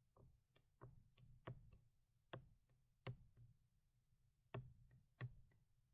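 A dozen or so faint, irregularly spaced taps and clicks of a stylus pen on a graphics tablet as lines are sketched.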